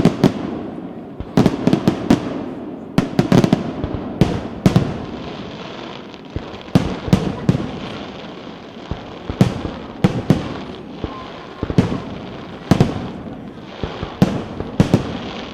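Aerial fireworks display: shell bursts banging in quick irregular clusters over constant crackling, with echoes trailing each bang.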